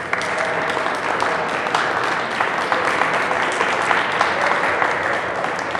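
Audience applauding: many hands clapping steadily, starting suddenly and tapering off near the end.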